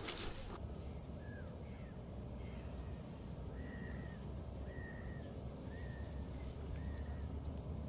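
A bird calling over and over: a run of short, clear notes about once a second, the later ones longer and level, over a low steady wind rumble on the microphone. A brief rustle at the very start.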